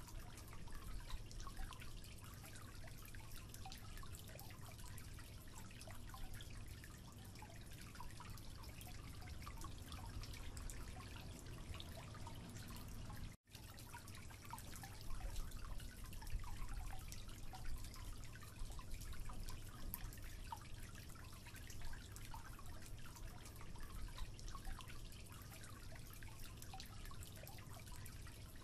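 Water dripping from a leaking, closed tap into a concrete sink: faint scattered drips over a low steady hiss. The sound cuts out for an instant about halfway through.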